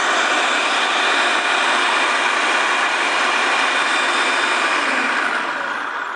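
Electric food processor running steadily, its blade whizzing basil, garlic, parmesan and pine nuts into pesto. The motor cuts off near the end.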